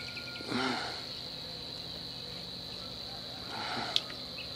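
A steady high insect drone, with two short splashes of a hooked fish thrashing at the surface while being played on a feeder rod: one about half a second in and one near the end, which finishes with a single sharp click.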